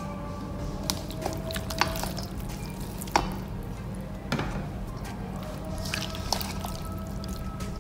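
Silicone spatula working raw chicken pieces through a thick yogurt marinade in a stainless steel bowl: wet squishing with scattered sharp clicks of the spatula and meat against the steel. A steady low hum runs underneath.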